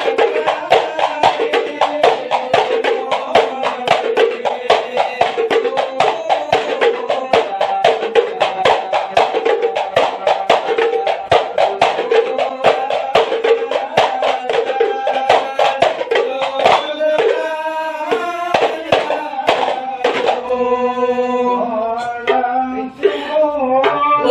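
Men chanting together to fast, dense beating of hand-held terbang frame drums in hadrah Ishari style. After about 16 seconds the drumming thins out, leaving long, wavering sung lines over sparser strokes.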